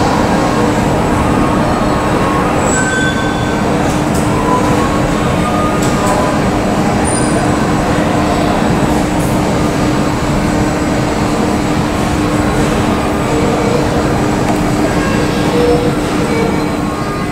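Steady roar of jet aircraft engines on an airport apron, with a constant low hum underneath and a few brief higher whines.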